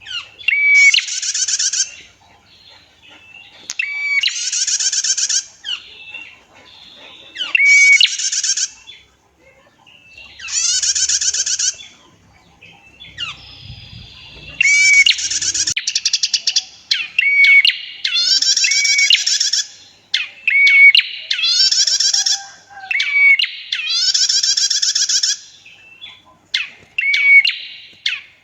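Female prinia (prenjak) calling: a run of loud, rapid trills, each about a second long, repeated every two to three seconds, with short chirps between them.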